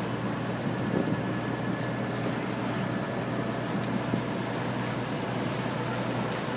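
Motor boat's engine running steadily under way, a constant low drone, with the wash of the wake churning along the hull.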